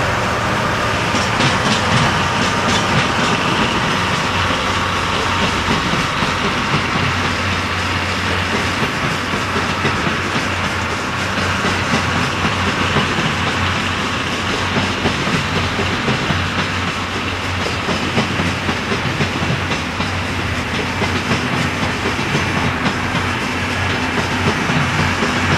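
Blue 24-series sleeper coaches rolling slowly past, their wheels clacking over rail joints, over a steady low hum.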